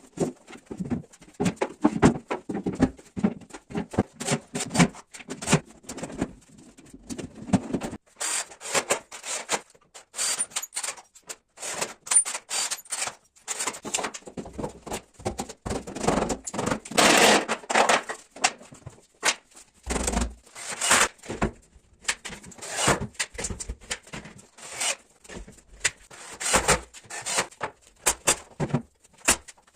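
Woodworking sounds: a quick, irregular run of knocks, taps and clicks, with short bursts of louder noise now and then.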